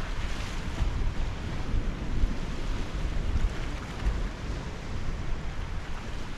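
Wind buffeting the microphone in irregular gusts, over the wash of small waves breaking on rocks.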